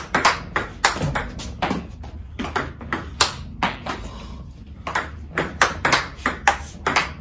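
Table tennis rally: the celluloid-plastic ball clicks off the bats and bounces on the table, three or four sharp clicks a second, with a break of about a second midway. One bat is faced with the hard 60-degree Xiom Omega VII China Ying rubber.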